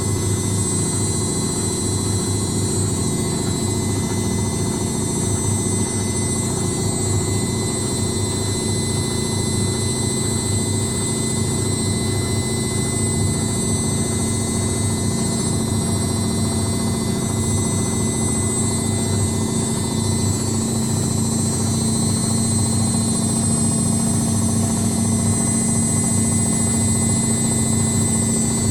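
Indesit WITL 106 top-loading washing machine on its spin cycle: a steady, continuous run with a high whine and rapid low knocking from the drum.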